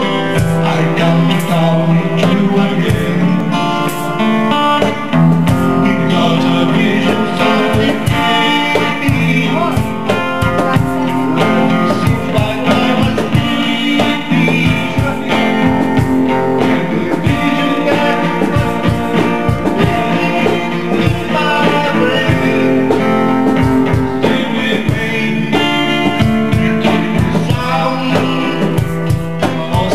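Band playing a guitar-led song with a steady strummed beat and a melody line over it.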